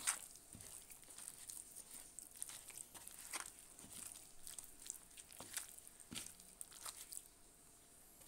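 A sharp click right at the start, then irregular small crisp clicks and crunchy taps, about one or two a second.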